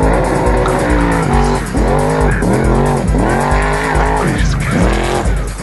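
Trophy Truck's V8 engine at racing speed, revs repeatedly rising and falling as it charges over rough desert track, heard over music with a steady beat.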